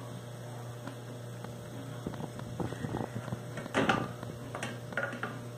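A steady low hum, with a few short scrapes and knocks from about two seconds in, the loudest near the end, as a wooden spoon stirs pasta in an aluminium pot on the stove.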